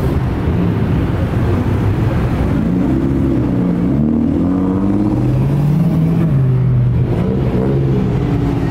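Cars driving past on the street, their engines revving and accelerating, the engine note rising and falling in pitch several times.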